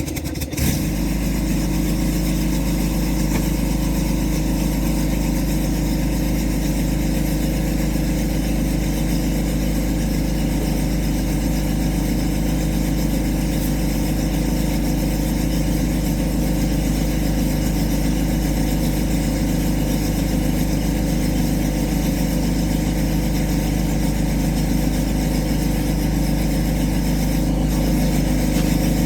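An engine starts and then runs steadily at an even idle.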